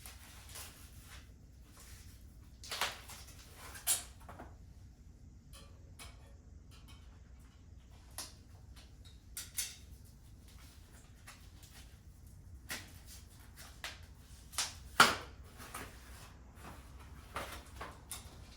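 Scattered clicks and knocks from a bike and its packaging being handled during unboxing, at irregular intervals; the loudest is a sharp knock about fifteen seconds in.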